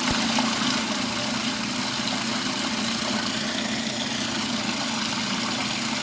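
Mini portable washing machine running a wash: a steady motor hum with water swishing in the tub.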